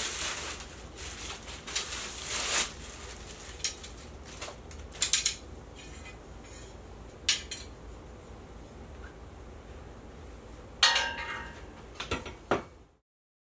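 Thin steel desk support rods being handled: light metal-on-metal clinks and clicks, with one louder clank that rings briefly about eleven seconds in. A rustle at the start, and the sound cuts off suddenly just before the end.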